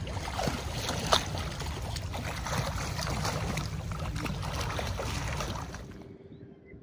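Water splashing and churning as a swimmer kicks with fins, with scattered sharp splash ticks over a steady low rumble. It drops away suddenly near the end.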